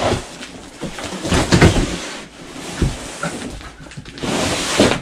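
A cardboard shipping box being handled and its contents shifted: rustling and scraping of cardboard, with a few dull thumps and a sharp click.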